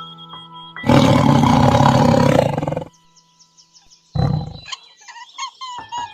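A large wild animal roaring loudly for about two seconds, then a second, shorter roar a little past the middle.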